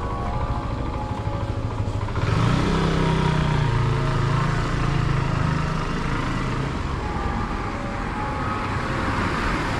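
Motor scooter driving past close by, its engine note rising sharply about two seconds in and fading out after about five seconds, over steady street traffic noise.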